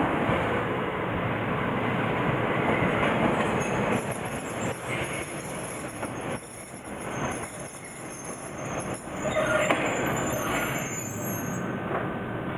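Ichibata Electric Railway's vintage DeHaNi 50-series electric railcar No. 53 rolling slowly in on the track and drawing to a stop. Its wheels click over the rail joints, and a thin high squeal runs through most of its approach, ending shortly before the end.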